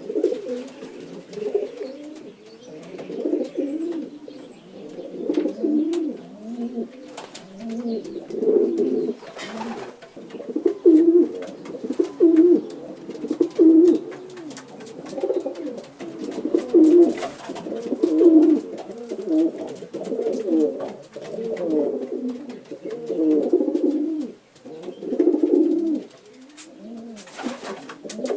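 Several pigeons cooing together, overlapping low burbling coos in repeated phrases every second or two.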